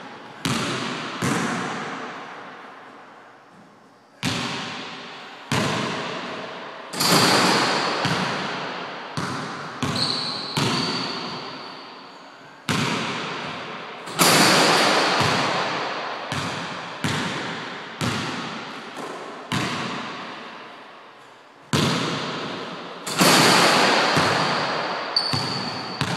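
Basketball bouncing on a hardwood gym floor, irregularly about once a second, each bounce ringing out in a long echo around the hall. A few of the impacts are much louder than the rest.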